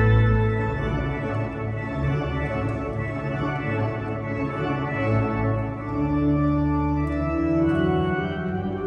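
Organ playing slow, sustained chords, with the harmony shifting every second or two.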